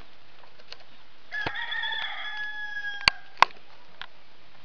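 A rooster crowing once: a call of about two seconds that ends in a long held note. It is followed by two sharp clicks.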